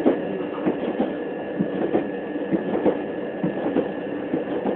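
Interior of a Southeastern Class 375 Electrostar electric multiple unit running at speed: the steady rumble and rattle of the carriage, with irregular clicks and knocks of the wheels over the track and a steady high whine.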